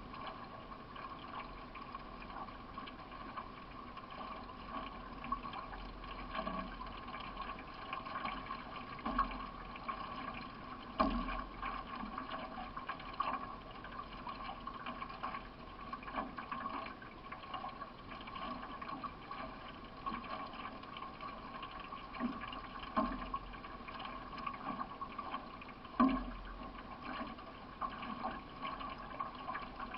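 Water rushing along a solo racing canoe's hull, with a handful of louder splashes or knocks at uneven intervals.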